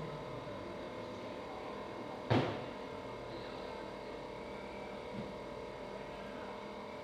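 A steady background hum with several held tones, broken once about two seconds in by a single sharp knock that dies away quickly.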